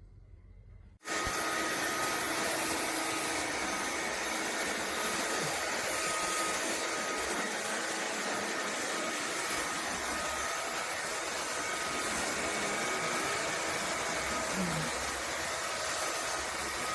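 Roborock F25 LT wet-dry floor vacuum running: a steady rushing noise with a faint whine, starting abruptly about a second in.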